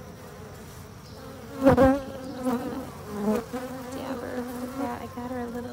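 Honeybees buzzing on an open brood frame: a steady hum, with one much louder buzz about two seconds in. The colony is agitated.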